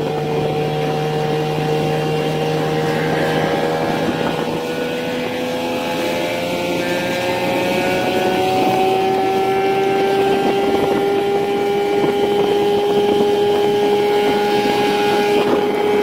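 Small outboard motor pushing an 8 ft jonboat at full speed: a steady, high engine drone whose pitch creeps slowly upward as the boat gathers speed, with wind and water rush beneath it.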